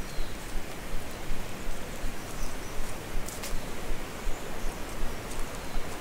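Steady rushing of the Hellyer River through the gorge. Footsteps on a leaf-covered dirt path land about every two-thirds of a second.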